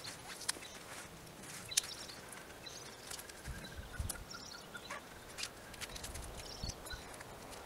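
Scattered light clicks and rustles of a hammock's tree strap being pulled and adjusted to tighten the hammock, with a few soft low thumps. Small birds chirp faintly in the background.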